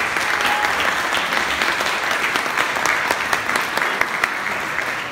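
Audience applauding: many hands clapping together in a steady patter.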